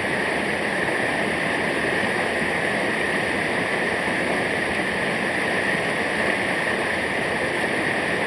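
Steady rush of falling water from a mountain waterfall.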